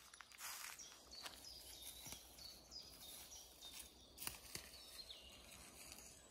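Faint woodland birdsong: short, high falling notes repeating every half second or so, with a few soft footsteps on the forest floor.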